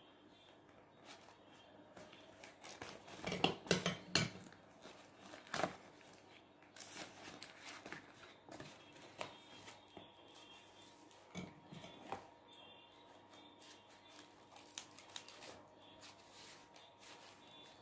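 Cardboard takeaway boxes and a paper food wrapper being handled: scattered rustling, crinkling and light knocks, loudest about three to four seconds in, with scissors snipping at the paper wrapper near the end.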